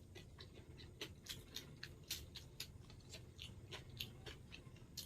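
Close-up mukbang eating sounds: faint, quick, irregular mouth clicks of chewing and lip smacking, several a second.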